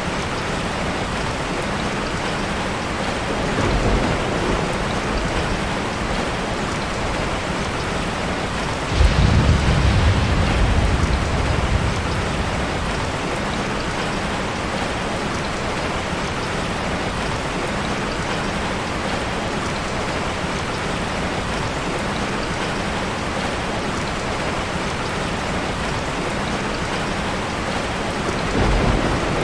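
Steady heavy rain falling, with distant thunder rumbling. The loudest roll of thunder breaks suddenly about nine seconds in and rumbles off over a few seconds, with softer rumbles a few seconds in and near the end.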